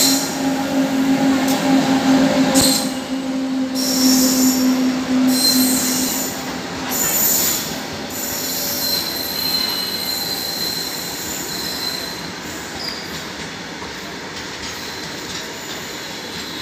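Indian Railways freight train of covered wagons rolling past behind an electric locomotive: a steady rumble of wheels on track with a low hum for the first seven seconds or so and several short, high wheel squeals in the first eight seconds. The rumble slowly gets quieter as the wagons go by.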